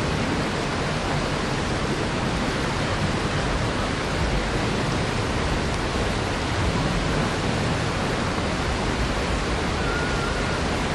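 Steady rush of shallow creek water running over a rocky riffle, an even noise with no break.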